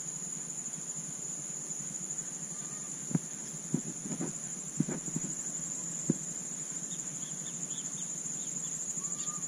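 Steady high-pitched insect chorus from the lakeside vegetation. A few short soft knocks come in the middle.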